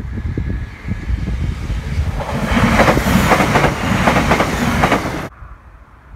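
GWR Networker Turbo diesel multiple unit passing close over a level crossing, its wheels clattering rapidly over the rail joints. The sound swells to its loudest about three seconds in, then cuts off abruptly about five seconds in.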